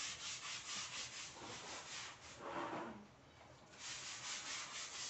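Stiff scrub brush worked back and forth over a wet tiled floor in quick, even strokes, about four a second, pausing briefly about three seconds in before the scrubbing resumes.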